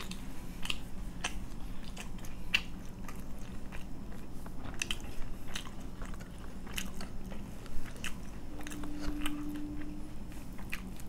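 Close-miked chewing of crunchy food, with scattered wet crunches and mouth clicks. A short low hum comes in about eight and a half seconds in.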